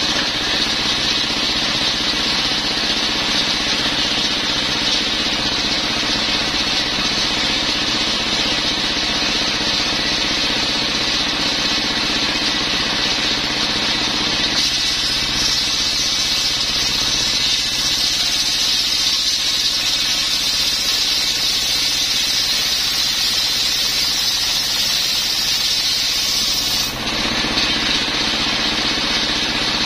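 Single-cylinder diesel engine running steadily, driving a table circular saw. About halfway through, the blade starts ripping lengthwise through a coconut palm log, adding a loud high-pitched cutting noise that stops suddenly shortly before the end.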